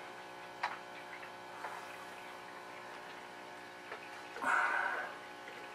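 A few light plastic clicks as canister-filter intake and outflow pipe parts are handled and fitted together, with a louder brief rustle about four and a half seconds in, over a steady electrical hum.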